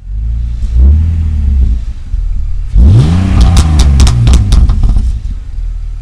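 Car engine revving: a short blip about a second in, then a sharper rev about three seconds in that rises and falls back with a quick run of sharp pops, before the sound eases off near the end.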